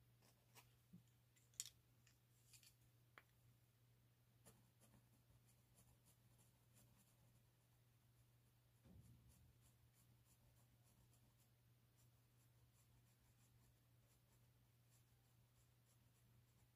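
Faint scratching of a coloured pencil shading on paper, with a few sharper ticks in the first three seconds and a steady low hum underneath.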